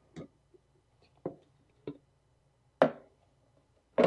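Kitchen bowls and utensils knocked and set down on a countertop: about five short knocks, the two near the end louder.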